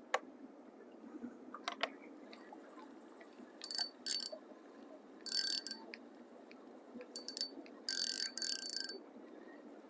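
Fishing reel being cranked in about five short high-pitched spells of mechanical clicking and whirring, the longest near the end.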